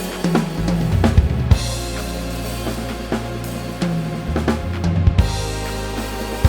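Drum kit with Soultone cymbals, hi-hats, bass drum and snare played along to a recorded music track with a steady bass line, with a few hard accented hits.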